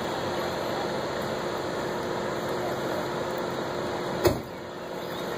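Steady churning noise of a paddlewheel showboat under way, its stern paddlewheel and engines running, with a faint steady hum. A single sharp click about four seconds in.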